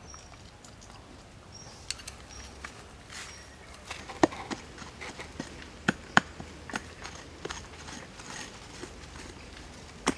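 A hand tool knocking sharply and irregularly into the ground as a man digs at the base of a small plant, starting about four seconds in. Before that, a few short high chirps.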